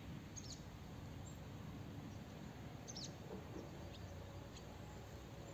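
Birds chirping: a handful of short, high chirps that fall in pitch, scattered through, over a steady low rumble of background noise.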